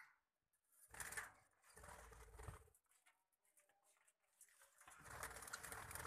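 Budgerigars chattering faintly, with two stretches of low rumbling noise, one about a second in and one near the end.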